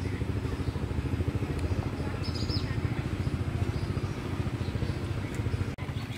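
An engine running steadily with a rapid low chugging, dipping out briefly near the end.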